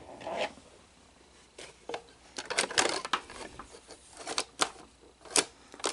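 Betamax cassette being pushed into the loading tray of a Sony SL-HF500 Betamax VCR: a quick run of sharp plastic and metal clicks and clacks from the cassette and the loading mechanism, mostly in the second half.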